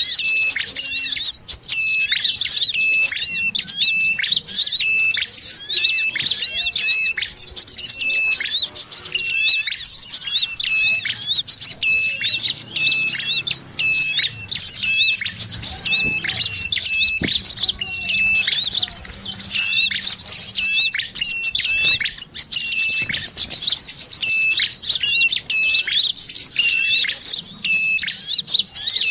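Bird-lure recording of small songbirds' agitated chatter: a dense, continuous stream of fast, high-pitched chirps, with a short, sharp call repeating about once or twice a second underneath. It mixes sogon chatter with tailorbird and sunbird calls, played to draw wild birds in.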